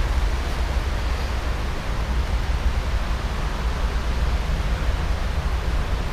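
Steady rumble and hiss with no distinct events: wind buffeting the microphone over the distant sound of an approaching EP1M electric locomotive and its train.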